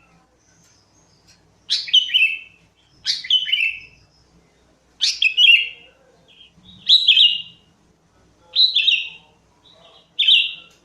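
Sooty-headed bulbul (kutilang) singing: six short phrases, each a quick run of falling notes lasting under a second, repeated about every one and a half to two seconds.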